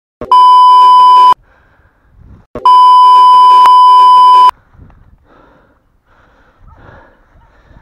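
Two loud, steady censor bleeps, the first about a second long and the second nearly two seconds, laid over the audio.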